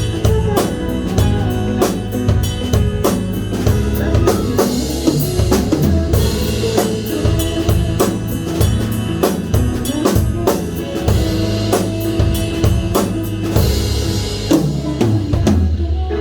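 Pop band playing an instrumental passage led by a full drum kit with bass drum and snare. Near the end the drums stop, leaving a held chord.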